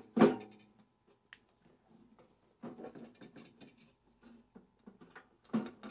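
Knocks, clicks and rattles of metal parts being handled as a microwave oven is taken apart for scrap, with a loud knock just after the start and a busy cluster of rattling in the middle.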